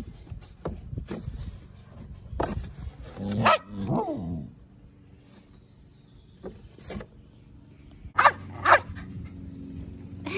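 Dogs playing at a cardboard box, with scuffling and knocks on the cardboard. A dog gives a whine that slides down in pitch about three seconds in, and two sharp barks half a second apart near the end.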